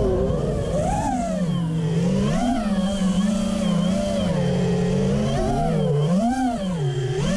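FPV quadcopter's T-Motor F40 Pro II brushless motors and propellers whining in flight. The pitch rises and falls repeatedly as the throttle is pushed and backed off through turns.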